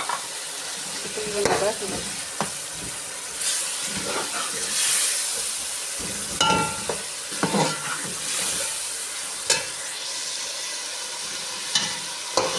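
Raw meat sizzling as it starts to fry in a tomato-onion masala in an aluminium pot, with a steel ladle stirring and now and then clicking and scraping against the pot's side.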